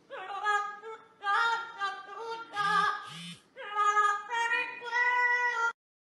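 Amazon parrot singing in a human-like voice: a run of held, slightly wavering notes, with two short harsh rasping sounds in the middle. It cuts off suddenly just before the end.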